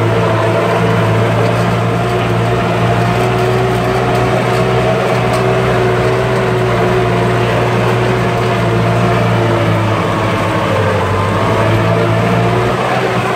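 Tractor engine running steadily under load while pulling a disc harrow through dry soil. The engine note sags slightly about ten seconds in, then picks back up.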